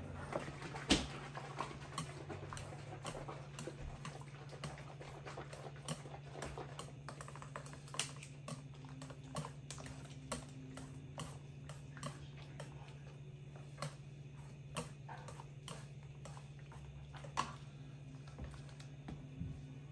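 Metal spoons and chopsticks clinking and scraping irregularly against ceramic bowls as noodle soup is stirred and seasoned, over a low steady hum.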